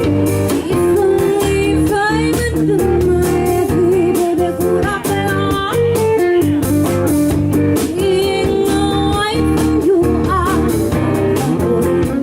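Live band playing a bluesy tune at a sound check, with guitar prominent over a steady bass and beat.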